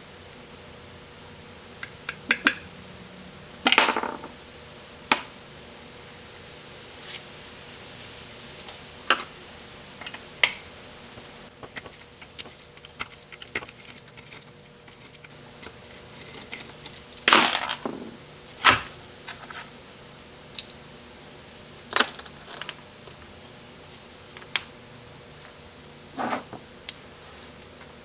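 Small metal parts and tools of a 727 automatic transmission valve body being handled on a workbench: irregular sharp clinks and clatters, a few with a short metallic ring, the loudest cluster about two-thirds of the way through. A faint steady hum runs underneath.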